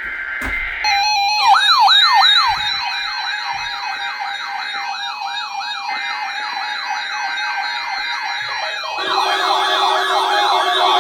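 Electronic sirens yelping in quick rising-and-falling sweeps, about two to three a second, over a steady alert tone. A second, faster siren layer comes in about nine seconds in.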